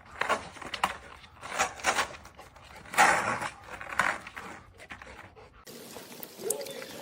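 A dog panting in irregular breathy puffs, the loudest about three seconds in; it stops about five and a half seconds in, giving way to quieter room sound.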